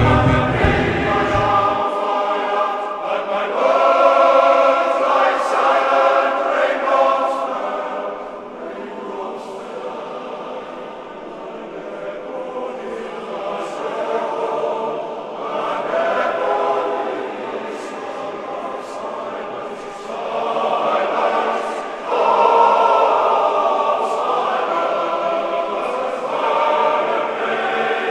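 Music: a choir singing, its phrases swelling and fading.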